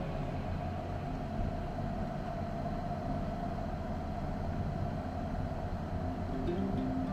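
Jeep Rubicon running steadily at low speed: an even, low engine and drive rumble.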